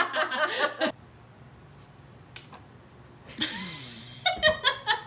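A person laughing in short, rapid bursts, once at the start and again near the end.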